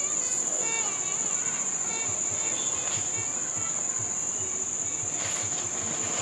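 Crickets trilling: a steady, continuous high-pitched shrill. Faint voices can be heard in the first second or so.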